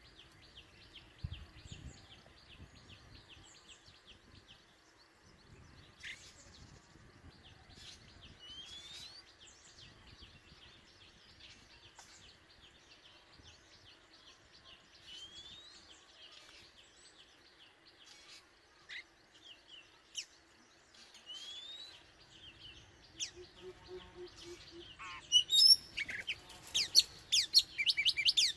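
Oriental magpie-robin singing: scattered rising whistles and chirps over a steady chorus of high chirping, becoming much louder and busier in the last few seconds, the song a male uses to call a mate and challenge rivals.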